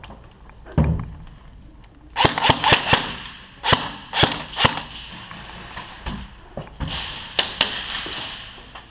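Airsoft guns firing: a quick burst of sharp shots about two seconds in, a few single shots, then another burst near the end, with a low thump about a second in.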